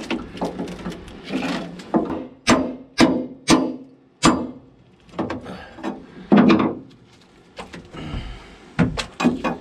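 Steel pry bar and claw hammer knocking and levering rotten wood off a boat's rusted steel hull. First a run of four sharp knocks about half a second apart, then a longer, louder crunch in the middle, and a few more knocks near the end.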